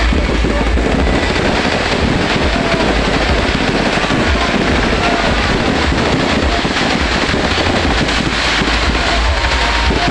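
Wind buffeting the microphone with a steady low rumble, over the faint chatter of a crowd.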